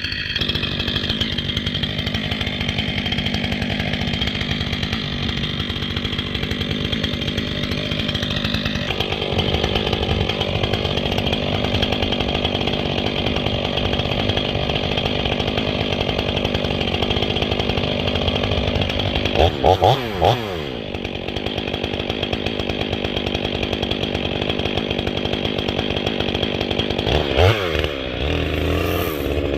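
Stihl 500i two-stroke chainsaw, its muffler baffle removed and outlet port opened, running hard while cutting pine, with the engine dropping and picking its revs back up about two-thirds of the way through and again near the end.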